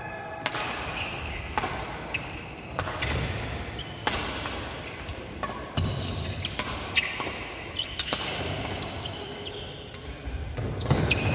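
Doubles badminton rally in a large hall: sharp racket hits on the shuttlecock about once a second, with shoes squeaking and footsteps on the wooden court between shots.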